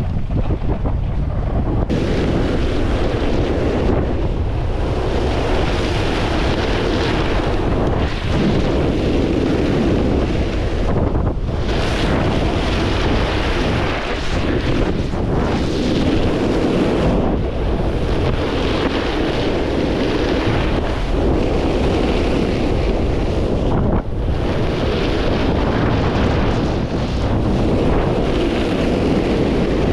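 Wind buffeting a moving camera's microphone during a fast run down a slope, mixed with the rushing hiss and scrape of snowboard edges carving through groomed snow, which swells and fades with each turn.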